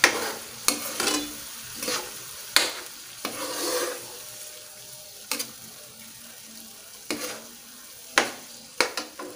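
A metal spoon stirs a simmering curry sauce in a stone-coated wok. Irregular clicks and scrapes of the spoon against the pan sit over a low, steady sizzle.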